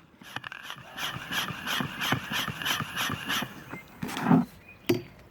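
Hand-operated oil suction pump worked in quick strokes, about three a second, pushing e-cigarette vapour through a hose into the engine intake to smoke-test for vacuum leaks. A low thump and then a sharp click follow near the end.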